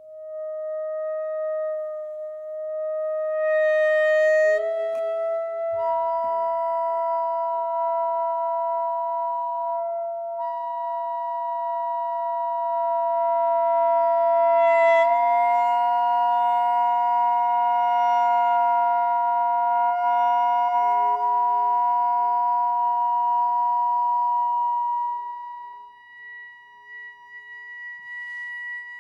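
Free-improvised music from a trio of saxophone, tuba and prepared piano: several long held tones overlap as a slowly shifting chord. A higher tone joins about six seconds in, the chord moves around four and fifteen seconds in, and most of it stops about 25 seconds in, leaving a faint high tone.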